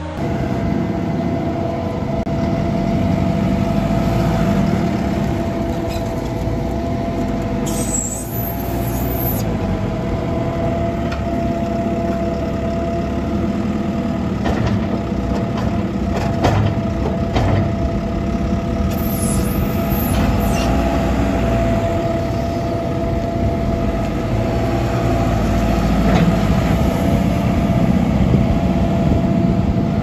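Diesel engines of a telehandler and a feed mixer wagon running steadily, with a constant hum. Two short high-pitched hisses come about eight and twenty seconds in, and a few knocks fall midway.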